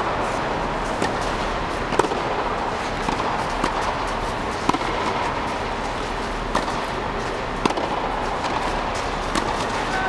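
Tennis balls being struck by racquets: about seven sharp pops at irregular intervals, roughly a second or more apart, over a steady rushing background noise.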